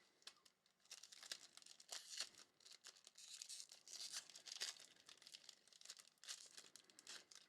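A trading-card pack wrapper being torn open and crinkled: faint, irregular crackling and tearing.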